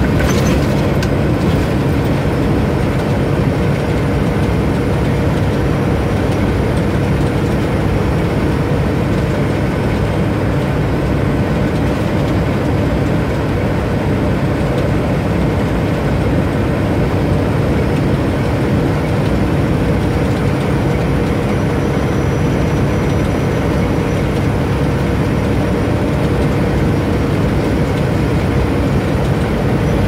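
Steady drone of a semi-truck's engine and tyre noise, heard inside the cab while cruising on the highway. A few sharp clicks come in the first second.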